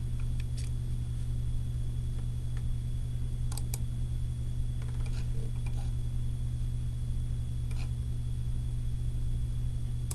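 Steady low hum of room tone, with a few faint clicks, two of them close together about three and a half seconds in.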